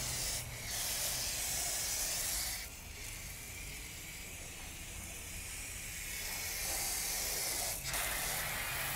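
Garden hose spray rinsing a muddy off-road truck tire: a steady hiss of water spray, somewhat softer from about three seconds in until near the end.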